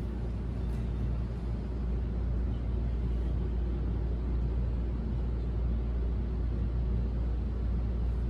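Steady low rumble with a faint hiss, the background room noise of a shop interior.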